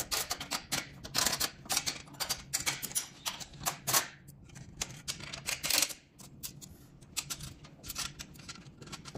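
Rapid, irregular metallic clicking and tapping from tools and fittings being worked against a stainless-steel conveyor frame as a position screw is tightened. The clicks come thick and fast, then thin out after about six seconds.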